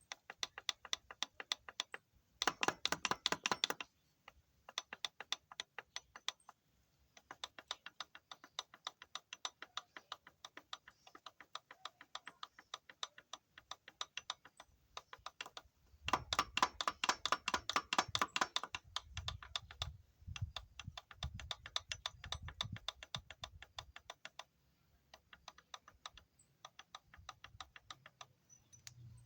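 Rapid metallic clicking rattle from the clutch basket of a Kawasaki Ninja GPX 600 at idle, coming and going in waves and loudest near the start and again past the middle. It is the sign of the basket's rubber dampers having broken to pieces.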